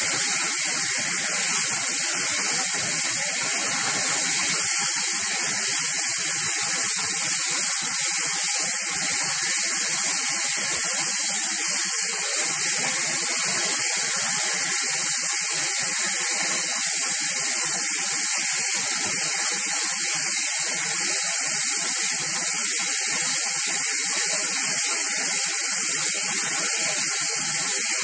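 GWR Large Prairie 2-6-2 tank locomotive standing at the platform, steam hissing steadily and loudly from the engine without letting up.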